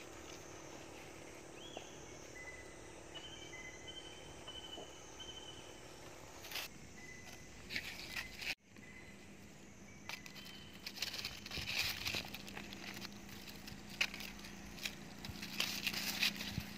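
Quiet outdoor ambience: faint high steady tones that come and go. From about halfway on there is scattered rustling and crackling, and the sound cuts out briefly just before that.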